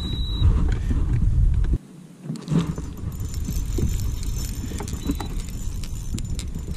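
Wind buffeting the microphone for the first couple of seconds, then, after a sudden drop, light irregular clicking and rattling as a Daiwa spinning reel is handled and its handle turned.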